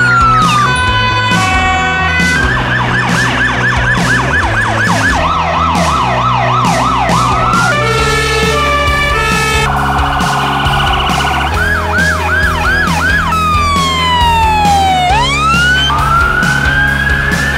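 A quick succession of emergency-vehicle sirens changing every few seconds: a wail, fast yelping sweeps, a two-tone hi-lo horn about eight seconds in, then a long falling wail and a rising one near the end. Background music with a steady beat runs underneath.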